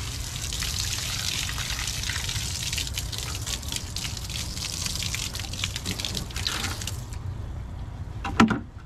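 Water spraying from a hose's metal nozzle onto scrub brushes, a plastic bucket and the deck, rinsing the soap away. The spray stops about seven seconds in, and a single sharp knock follows near the end.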